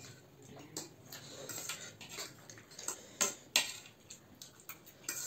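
Metal forks clicking and scraping against ceramic plates of food: a scatter of light, irregular clicks.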